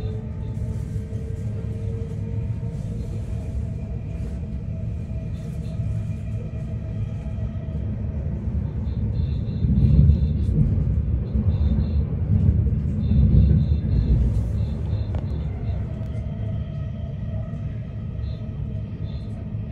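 Running noise of an electric commuter train heard from inside the carriage: a steady low rumble of wheels on track, with faint steady tones above it, swelling louder about ten and again about thirteen seconds in.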